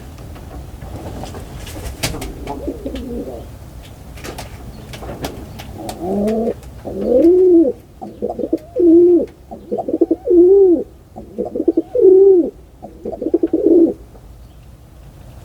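Pigeon cooing: a run of about seven loud, low, warbling coos in the second half. Softer cooing and a few sharp clicks come earlier, over a steady low rumble.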